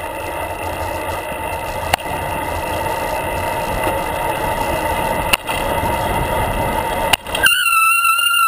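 Bicycle rolling on the road, a steady rumble of tyre and wind noise with a few sharp clicks. About a second before the end the front brake comes on with a steady high-pitched squeal: the brake squeal fault of this bike.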